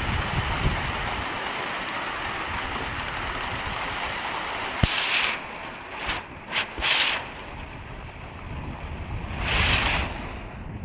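Hail and heavy rain pelting a corrugated roof as a steady hiss, with a sharp knock about five seconds in and a few brief louder surges later on.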